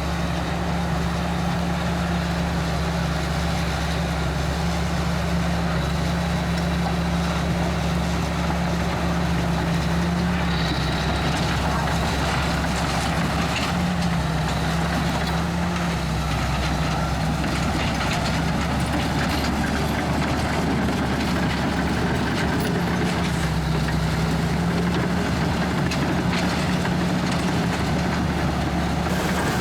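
Komatsu D61EX bulldozer's diesel engine running steadily under work, its pitch wavering a little, with scattered clanks and rattles from about ten seconds in.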